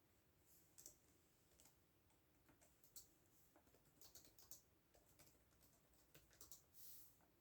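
Faint computer keyboard typing: scattered keystrokes in short irregular runs, with a brief soft hiss near the end.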